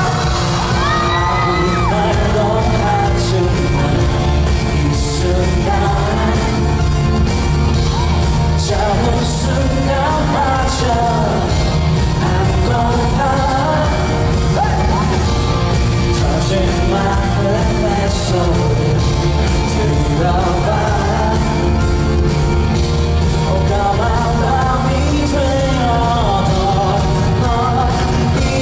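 Live pop music played loud over a concert hall's PA: a male lead vocalist sings into a handheld microphone over a band with drums and steady bass.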